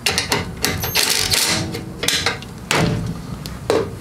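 Ryobi cordless impact driver hammering in short rattling bursts on a bolt of a lawnmower wheel bracket, followed by a few separate knocks of tool and parts on the steel bench.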